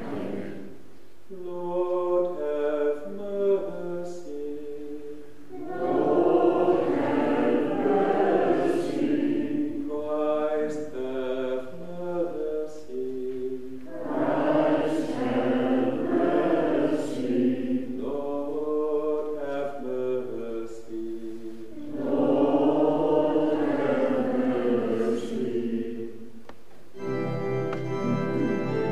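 A sung Kyrie ("Lord, have mercy") with organ, in three call-and-response rounds: a short lead phrase each time, answered by fuller, louder group singing. Near the end the organ plays on alone, starting the next piece.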